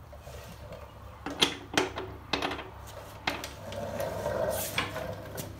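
Hand tools working on a Harley-Davidson Road King's rear axle adjuster: a few sharp metal clicks and knocks, then a longer rasping stretch about four seconds in, as the axle is being straightened for belt alignment.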